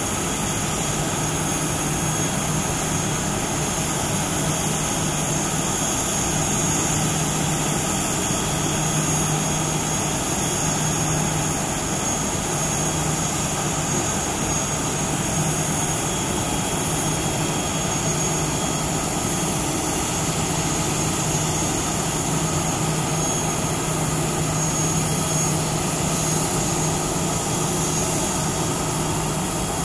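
Airbus A320 jet engines running steadily at low power: a continuous rush with a thin high whine over it and a low hum underneath.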